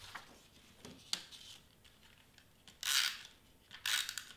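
Handheld tape runner laying adhesive on a cardstock piece: two short rasping strokes about a second apart in the second half, after a few light clicks and rustles of the paper being handled.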